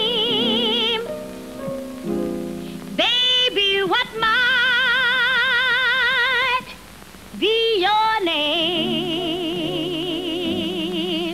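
A woman singing a slow jazz ballad, sliding up into long held notes with a wide, even vibrato, over a small band's sustained accompaniment. There are two long held notes, each several seconds, with a short drop in level between them at about seven seconds.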